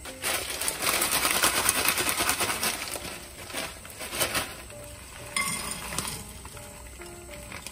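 A dense crackle and clatter of small hard pieces for the first few seconds. Near the end a bagged fried-rice mix is poured from its plastic bag into a hot oiled nonstick pan: the grains clatter onto the pan and begin to sizzle. Faint background music underneath.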